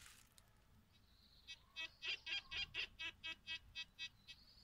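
Tianxun TX 850 metal detector giving a faint steady high tone, then about a dozen quick beeps in a row, about four or five a second, from about a second and a half in. This is the detector's signal as a 2-euro coin is passed in front of the coil at about 40 cm in all-metal mode, where it still detects the coin.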